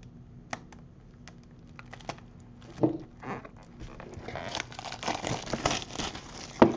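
Plastic wrapping on a box of trading cards being torn open and crinkled. A few light clicks of handling come first, then steady crinkling through the second half.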